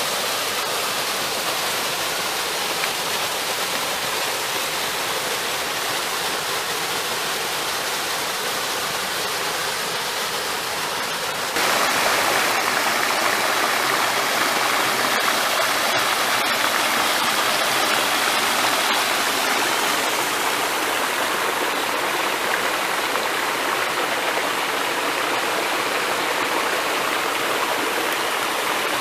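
Small waterfall on a mountain stream, water rushing steadily down a narrow rock channel. The rushing gets suddenly louder about twelve seconds in.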